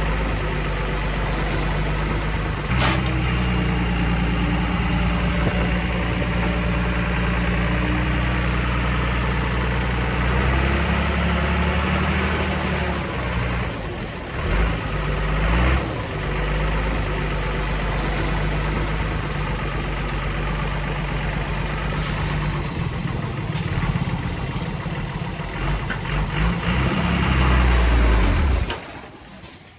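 Diesel engine of heavy earthmoving machinery running under work, its engine note shifting several times, then dropping away suddenly near the end.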